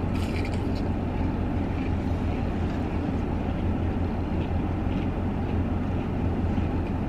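Steady low hum of a parked car's engine idling, heard from inside the cabin, with a brief crisp crunch of a bite near the start.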